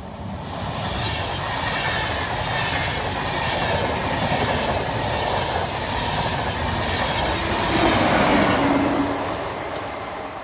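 A train passing on the track: its rumble builds over the first couple of seconds, is loudest about eight seconds in, then fades away.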